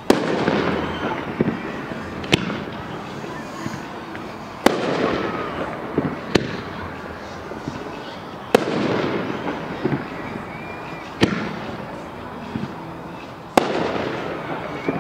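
Aerial firework shells bursting: four loud bangs, about every four to five seconds, each followed by a rolling crackle and echo. Fainter sharp reports come between the bangs.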